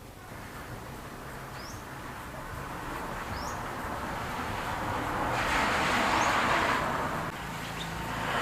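A passing vehicle, its noise swelling over several seconds and falling away about a second before the end. A small bird chirps three times.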